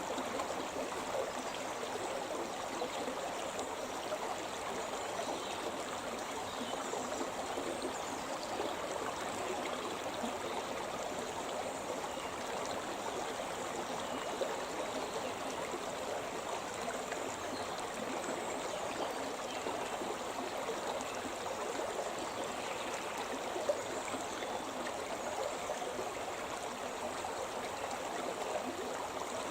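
Shimna River, a rocky upland stream, rushing and burbling over stones in a steady, even flow.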